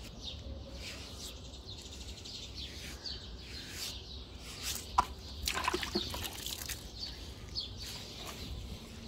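Water dripping and trickling off a freshly hosed horse, with small birds chirping over and over in the background over a low steady rumble. A few brief louder splashes come about five to six seconds in.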